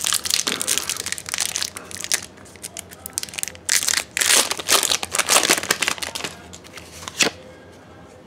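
Foil Pokémon card booster pack wrapper being torn open and crinkled by hand: dense crackling for the first few seconds, then a few separate crinkles, one sharp one about seven seconds in, before it goes quiet.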